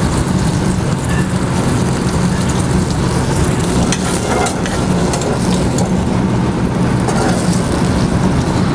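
Vindaloo sauce boiling and sizzling in a stainless steel pan on a gas burner as shrimp are put in and stirred, with scattered fine crackles, over a steady low hum.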